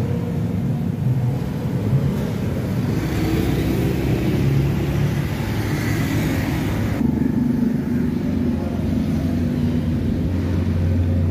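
A motor vehicle engine running steadily, its low hum growing stronger near the end.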